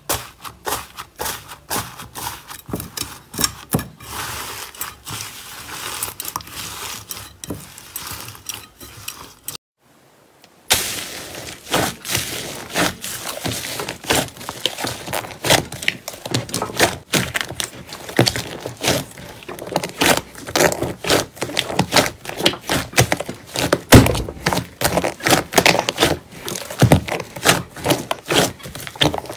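Hands pressing slime. First a crumbly, grainy slime gives a dense run of crackles. After a short break about ten seconds in, a large glossy slime with foam beads is squeezed and kneaded, giving sharp clicks and pops.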